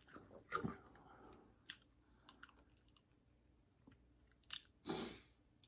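Faint chewing and mouth sounds from a person finishing a mouthful of food: a few short, soft smacks and clicks spread through quiet stretches, the loudest near the end.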